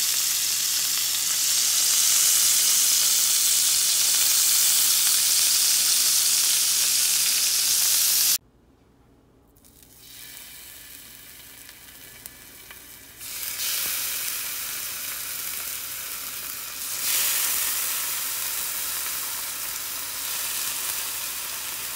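Bacon sizzling in a hot cast iron pan, a steady fat-spitting hiss. It cuts off about a third of the way through, then returns fainter and gets louder in two steps as raw strips are laid into the pan.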